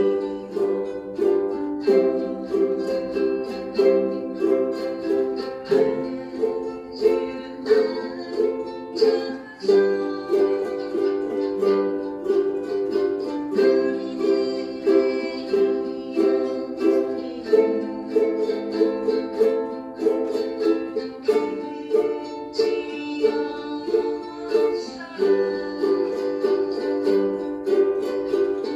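Ukulele strummed in a steady rhythm, playing chords of a slow song.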